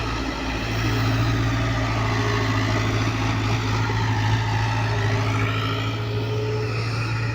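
Hyundai excavator's diesel engine running steadily under load, with a steady low drone and higher whining tones that rise and fall in pitch as it works. It gets a little louder about a second in.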